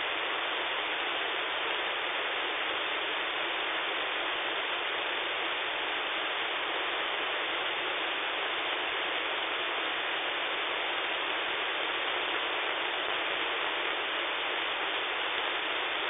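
Steady radio static from a KiwiSDR web receiver tuned to 27.555 MHz in the 11-metre band in upper sideband, with no station on the frequency. The hiss is even and unbroken, with the thin, bass-less sound of a sideband receiver's narrow audio passband.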